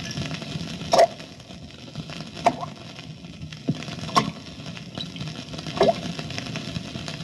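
Single water droplets dripping one at a time, a sharp plop about every one and a half to two seconds over a low steady background: the sound effect of Chinese water torture, drops falling on a prisoner's forehead.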